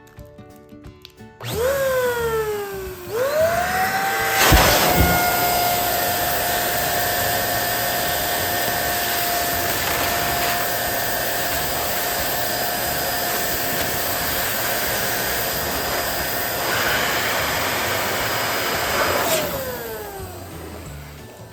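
Electric balloon inflator running with a rush of air. Its motor starts with a brief whine that drops in pitch, restarts, then holds a steady whine for about fifteen seconds while a balloon fills, with a sharp knock shortly after the restart. Near the end it is switched off and winds down in pitch.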